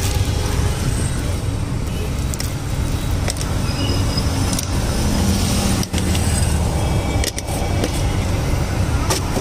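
Steady low rumble of a running motor, with two short sharp clicks about six and seven seconds in.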